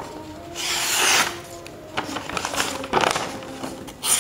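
A steel meat-knife blade slicing through a sheet of paper in a few hissing, rustling strokes, one longer swipe followed by shorter ones. This is a sharpness test of the knife's factory edge, which cuts smoothly.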